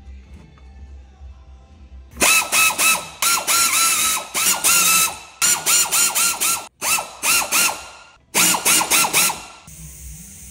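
Pneumatic air wrench, fed by an air hose, rattling in five short bursts as it drives the mounting bolts of a caravan mover bracket tight against the chassis, starting about two seconds in.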